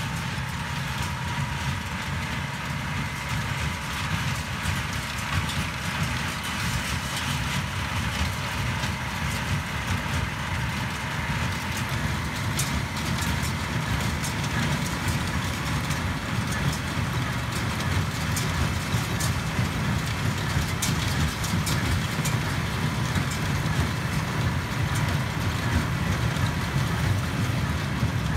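Case CX100 tractor's four-cylinder diesel engine running steadily while pulling a Claas Dominant small square baler that is baling hay, the engine and baler mechanism together, gradually getting louder.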